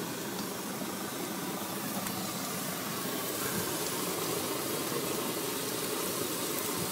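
Cooking-stove burners under pots, burning with a steady hiss.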